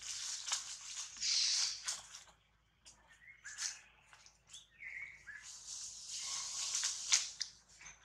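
Dry leaf litter rustling and crackling as macaques walk and shuffle through it, in uneven spells, with a couple of short high chirps partway through.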